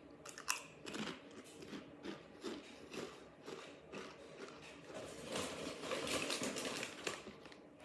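Crunching and chewing of ridged potato chips: a run of short, crisp crunches, busier and louder about five to seven seconds in.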